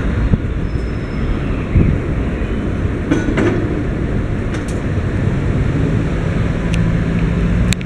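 Steady low rumble of city street traffic, with an engine hum joining in the last couple of seconds.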